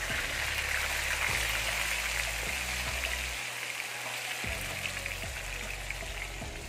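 Minced garlic sizzling in extra virgin olive oil in a wok on low heat, a steady crackling hiss.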